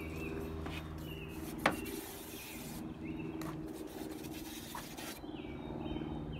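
Hand-pump garden sprayer misting bleach disinfectant from its wand, a hiss in two bursts of about a second each, with one sharp click about one and a half seconds in. Birds chirp and a steady low hum runs underneath.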